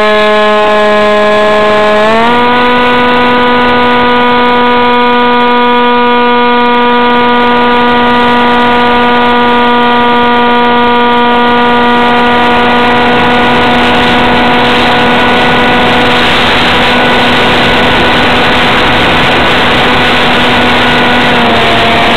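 Electric motor and pusher propeller of a ParkZone F-27B flying wing, heard from a camera taped to the plane: a loud, steady whine that steps up in pitch about two seconds in as the throttle opens, then holds. Wind rush on the microphone builds from about halfway, and the pitch dips slightly near the end.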